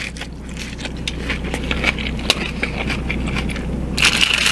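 Close-up chewing of a crunchy hard-shell taco (a Doritos Locos taco shell), with dense crackling crunches and a louder crunch near the end.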